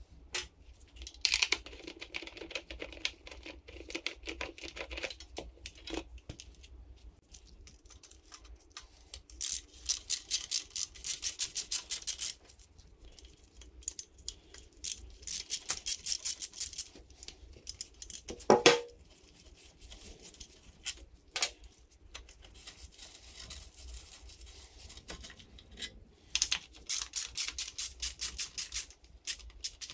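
Ratchet wrench clicking in quick runs as bolts are worked loose on a Yamaha PW80 dirt bike's engine, with shorter rustling and handling of parts in between and one sharp clunk a little past halfway.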